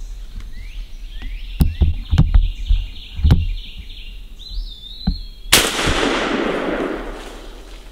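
A single gunshot fired up into the treetops about five and a half seconds in, its report echoing and fading over about two seconds. Before it, a quick run of short, high chirping calls and a few soft thumps from footsteps or handling.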